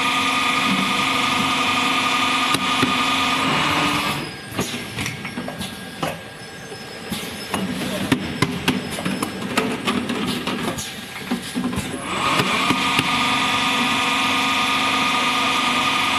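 Automatic piston filling machine running. A steady pitched machine whine lasts about four seconds, then stops. A stretch of sharp clicks and knocks from the mechanism follows, and the whine starts again about twelve seconds in.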